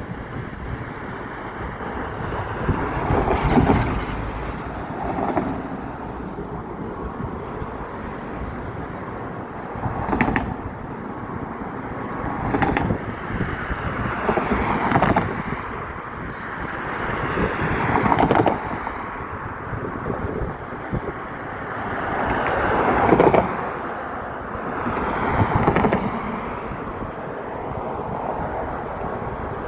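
Road traffic: vehicles passing one after another, each swelling and fading over a second or two, over a steady background rush.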